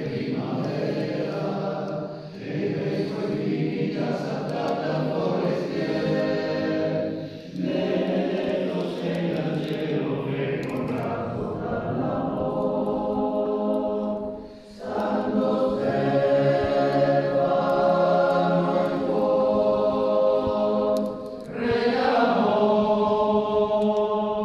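Male voice choir singing unaccompanied in several parts: long held chords in phrases separated by brief pauses, louder in the second half.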